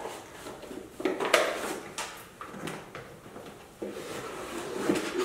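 Paper packaging rustling and crinkling as things are taken out of a small paper shopping bag, in irregular handling strokes, the sharpest about a second in and near the end.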